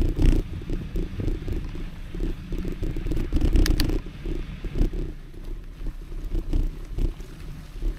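Mountain bike rolling fast over a rough dirt trail: uneven tyre noise with rattling from the bike, and a few sharp clicks about three and a half seconds in.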